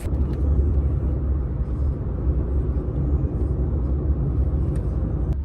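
Steady low rumble with a faint hiss above it, with no clear rhythm or separate events.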